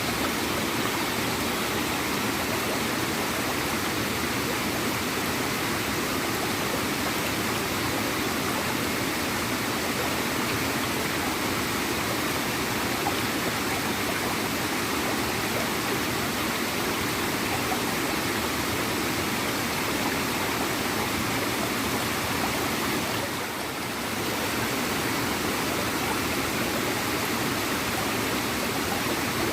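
Small waterfall gurgling and splashing in a steady, continuous flow of water. The sound dips briefly about three-quarters of the way through.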